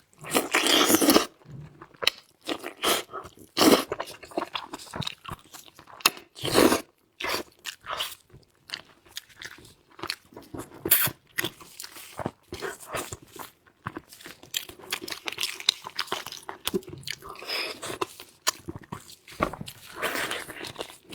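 Close-miked biting and chewing of meat, with crunchy bites and chewing noises in irregular bursts.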